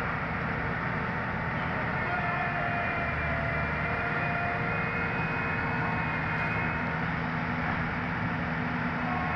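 Diesel engine and hydraulics of a demolition excavator running steadily under load, with faint whining tones that drift slightly in pitch.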